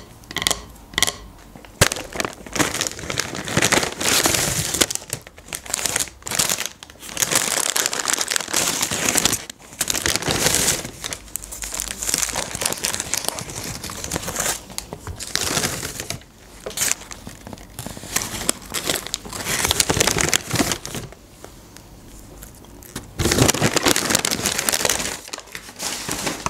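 Paper takeaway bag and paper food wrappers rustling and crinkling in repeated bursts as fast food is unpacked, with a few sharp taps near the start.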